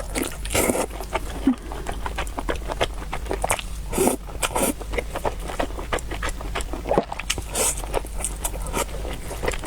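Close-miked eating of noodles and soup: chewing with many wet mouth clicks, and three short slurps.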